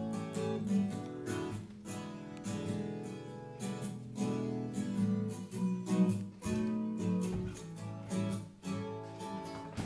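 Acoustic guitar strummed, one chord after another with repeated strokes.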